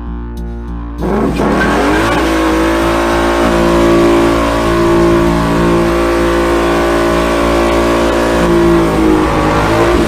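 Music for about a second, then a Whipple-supercharged Ford Mustang GT V8 revs up suddenly and is held at high revs, its rear tyres spinning and squealing in a burnout. The revs fall away near the end.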